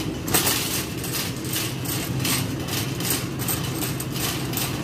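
Wire shopping cart being pushed over a tile floor, its basket and wheels rattling, with a regular clatter about two and a half times a second over a steady low rumble.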